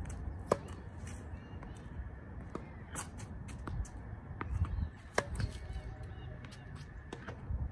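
Tennis balls struck by a racket and bouncing on a hard court: a string of sharp, short pops, the loudest about half a second in and another just after five seconds, over a low rumble of wind on the microphone.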